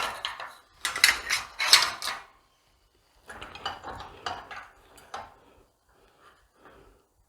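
Metal tools and parts clanking and clinking on a workbench while a bent motorcycle part is worked on. A run of loud clanks comes in the first two seconds, then softer scattered clicks and taps.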